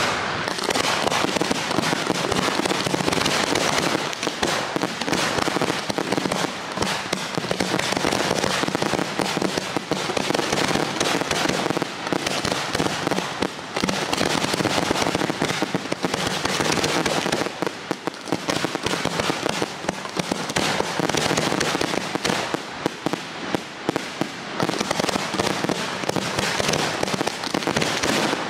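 Fireworks display: aerial shells bursting in a rapid, unbroken barrage of bangs and crackling.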